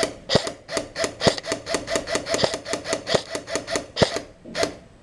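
Airsoft gun firing a rapid, steady string of shots, about five a second, with a short gap before a last shot near the end.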